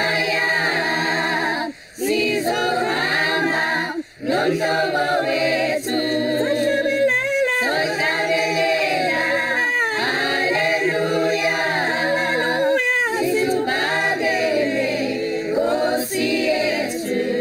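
Choir singing a song in several voices, with two brief pauses about two and four seconds in.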